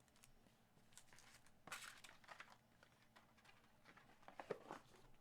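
Faint rustling and crinkling of trading cards and their packaging being handled, with scattered soft clicks and a slightly louder crinkle a little under two seconds in.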